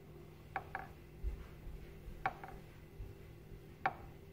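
Faint wet rubbing with a few soft, sharp clicks as a cotton pad is worked over a telescope's primary mirror lying in soapy water in a glass dish; the loudest click comes near the end.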